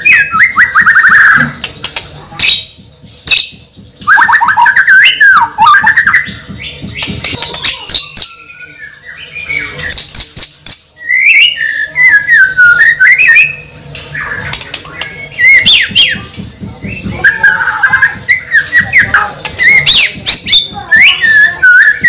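A bird calling repeatedly and loudly, with chirps and whistled notes that glide up and down in pitch.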